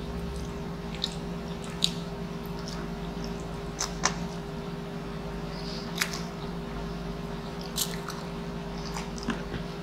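Close-miked chewing and biting on a mouthful of noodles, with a few sharp wet clicks, over a steady low hum.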